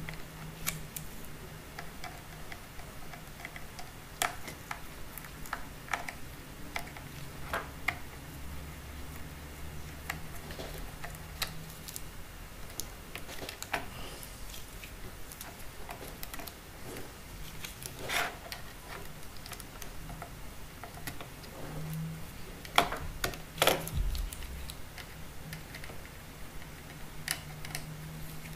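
Irregular light clicks and taps of a small metal pick and parts against a Samsung Galaxy S5's metal midframe as it is worked by hand, with a few louder clicks in the second half.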